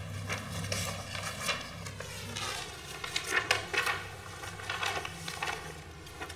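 Room tone with scattered faint clicks and rustles, and no voice.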